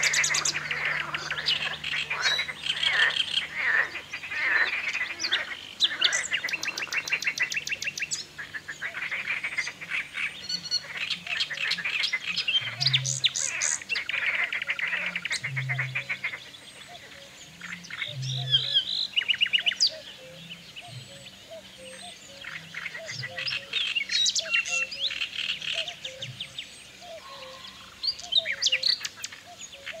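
Dawn chorus: several birds singing and calling at once, with rapid trills and chirps, and frogs croaking low underneath.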